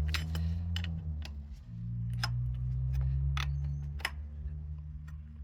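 A handful of sharp, irregularly spaced clicks and taps over a steady low hum.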